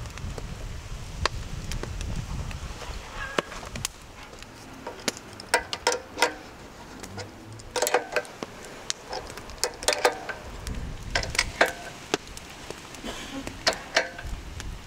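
Metal clinks and rattles of a rotisserie spit's chain, sprocket and bolted clamps being handled and adjusted, coming in quick clusters from about five seconds in. A low rumble fills the first few seconds.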